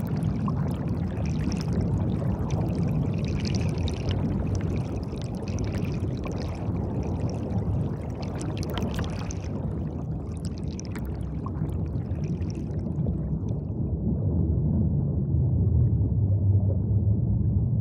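Underwater bubbling and gurgling of gas streaming up from volcanic vents in the seafloor, over a deep rumble. The bubbling fades about thirteen seconds in, leaving the low rumble, which swells near the end.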